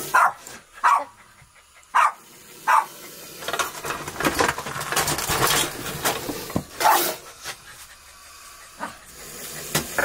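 A dog barking in short, sharp single barks at irregular intervals, a warning at a hooded cobra close by.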